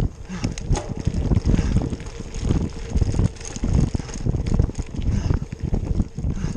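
Cyclocross bike riding over a rough dirt trail: a continuous rumble of tyres on ground with irregular knocks and rattles over bumps, and wind buffeting the microphone.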